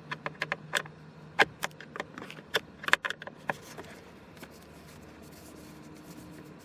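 Quick sharp clicks and taps of a Phillips screwdriver working a screw out of the plastic trim around the ignition, dying away after about three and a half seconds to a faint steady hum.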